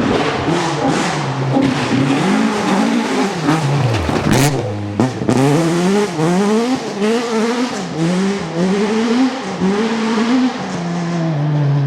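Rally Ford Escort engine at full effort: the engine note drops low about four seconds in with a sharp crack, then revs rise and fall in quick succession through the gears, settling into a steady note near the end.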